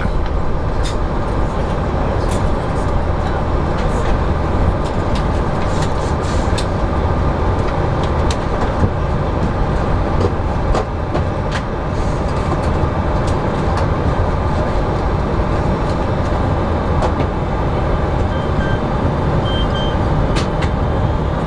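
Steady low rumble inside a moving vehicle, with frequent small rattles and clicks throughout.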